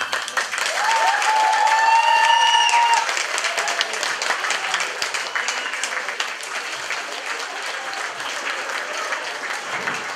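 Audience applauding, dense clapping that is loudest for the first three seconds and then eases to a steadier level.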